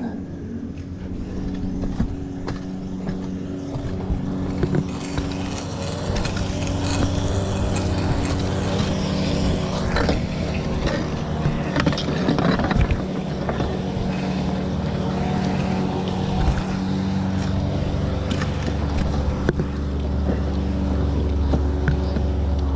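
An engine running steadily, with scraping and knocking as a hose is pulled hand over hand up across clay roof tiles.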